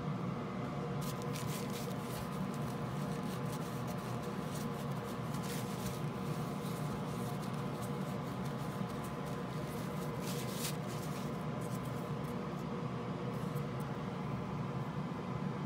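Paper tissue rubbing and scrubbing across a printed circuit board in short irregular strokes for about ten seconds, over a steady background hum.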